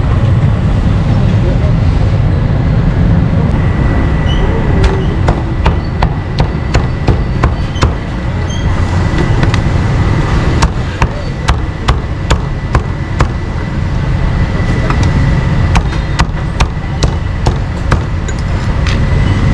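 A cleaver chopping meat on a chopping block: runs of sharp, evenly spaced knocks at about two or three a second, over a steady low rumble of street noise.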